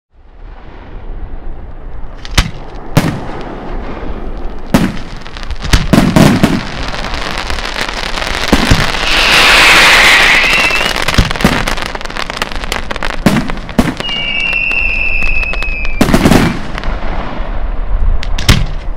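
Italian cylindrical aerial firework shells launching from mortars and bursting in a string of sharp bangs. A loud hissing swell comes about halfway through, and a steady high whistle lasting about two seconds comes near the end.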